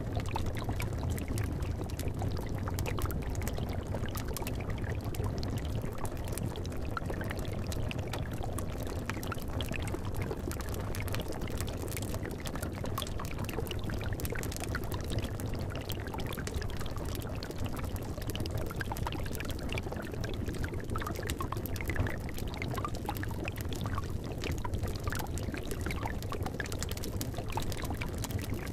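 Liquid bubbling steadily in a cauldron, with many scattered small pops over a low, even rumble.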